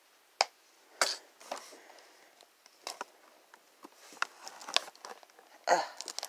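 Blue plastic screw cap of a Crayola washable paint jar being twisted open by hand: a series of sharp plastic clicks and scrapes, several seconds apart.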